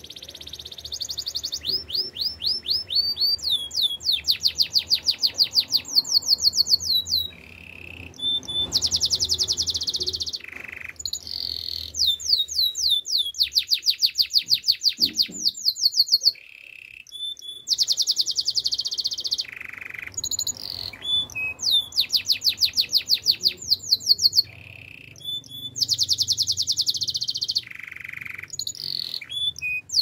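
Domestic canary singing: a string of song phrases, each a fast trill of rapidly repeated high notes, some sliding up or down, with brief breaks between phrases.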